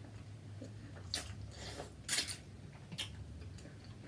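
Eating sounds made while working through a seafood boil: three or four short noises about a second apart, over a low steady hum.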